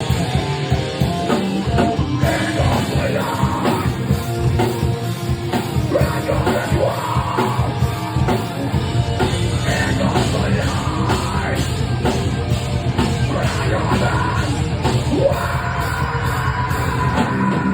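Live heavy rock band playing loud and dense on drums, guitars and bass, with yelled, screamed vocals over it.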